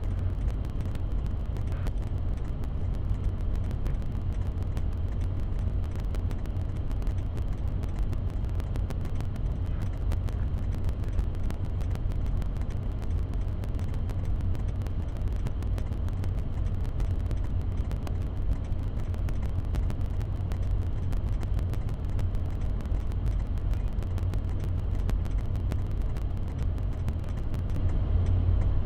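Steady low rumble of a motor vehicle engine running, with no distinct events.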